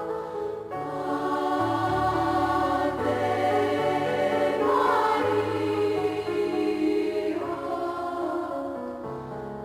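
A choir singing a slow, soothing sacred piece in sustained harmony, with long held chords that change every second or two over steady bass notes.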